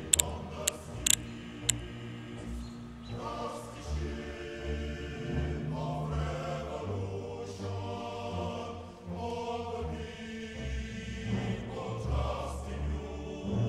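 Choral music with voices singing in long held phrases. Near the start come four sharp cracks in quick succession within about two seconds.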